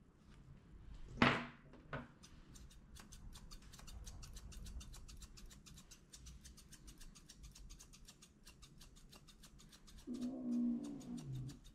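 Grooming shears snipping through a Persian cat's long fur in quick, repeated cuts, after a sharp clack about a second in. Near the end the cat lets out a low growl of about a second and a half.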